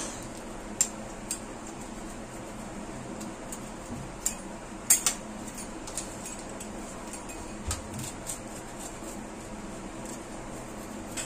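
Wheel pizza cutter slicing crisp roasted chapati rolls on a stainless steel plate, the wheel and its handle clinking against the plate in irregular sharp clicks, the loudest about five seconds in, over a steady low hum.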